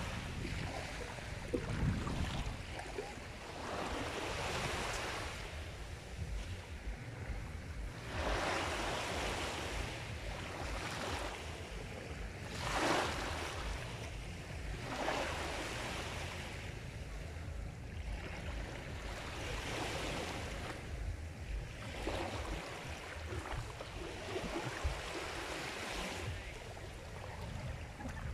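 Sea surf: waves swell and wash in every few seconds over a steady low rumble, with one stronger wave about halfway through.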